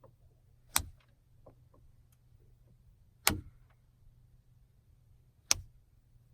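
Three sharp knocks about two and a half seconds apart, with a few faint ticks between them over a steady low hum: small toy pieces set down hard on a table, the child's response to each tone in a play hearing test.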